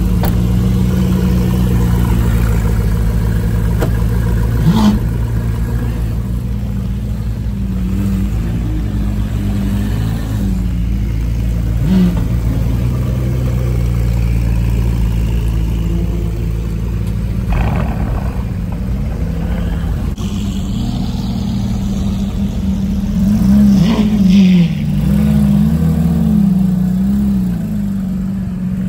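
Supercar engines running together, a steady low drone with several short revs, the loudest about five and twelve seconds in and again near twenty-four seconds.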